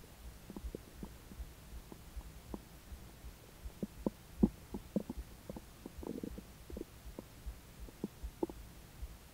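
A human belly gurgling while it digests a meal: a scatter of small, irregular pops and clicks, with a brief gurgle about six seconds in. The loudest pop comes a little past four seconds.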